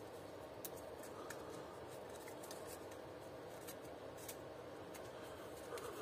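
Faint, scattered light clicks and rubbing from handling plastic vacuum-cleaner housing parts and working a rubber seal off a plastic ring, over a steady background hum.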